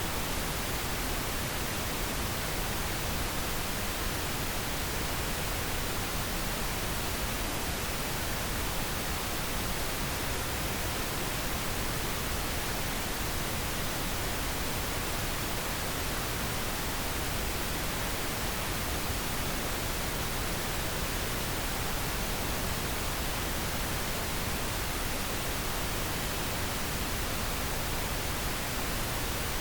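Steady pink noise: an even, unchanging hiss across the whole range, without pauses or events, played as a sleep aid for babies.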